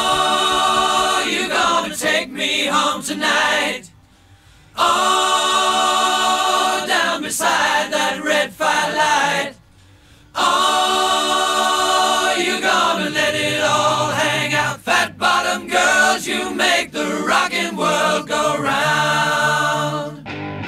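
Background music: a choir singing held, harmonised chords, with two short pauses about four and ten seconds in.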